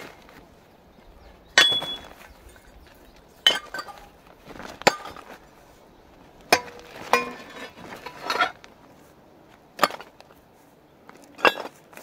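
Rusty scrap iron pieces being dropped one at a time into a bag, clanking against the metal already inside: about eight sharp metallic clanks a second or two apart, some with a brief ring.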